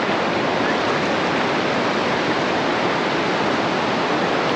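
Surf washing in at the shoreline: a loud, steady rush of water with no breaks.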